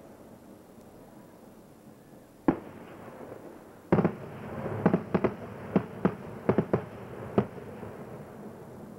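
Fireworks going off: a single sharp bang about two and a half seconds in, then a louder burst a second and a half later followed by a quick string of about nine sharp pops.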